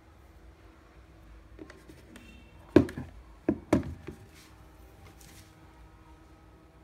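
Hand knocking on and handling the magnetic levitation globe's plastic base on a wooden desk: a few light clicks, then three sharp knocks about three seconds in, the first the loudest.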